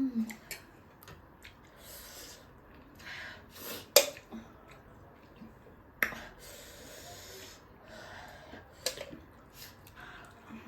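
Close-up eating sounds: a person eating spicy chicken wings, with sniffs and breaths and several sharp clicks or crunches, the loudest about four seconds in.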